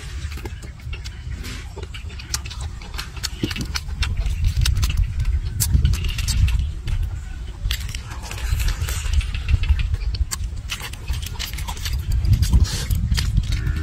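Baked eggs being eaten by hand: sharp, crisp clicks of eggshell cracking and being picked apart between the fingers, and chewing, over a low rumble.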